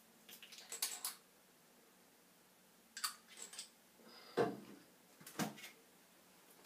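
Light clicks and taps of small toiletry containers being handled, with two duller knocks about four and a half and five and a half seconds in as items are set down on a wooden shelf.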